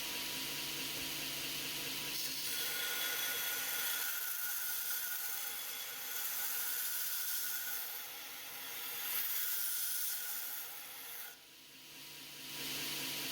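A power grinder running while a steel kitchen-knife blade is ground against it to reprofile the edge: a steady rasping hiss over the motor's hum. The grinding drops away for about a second near the end, then comes back.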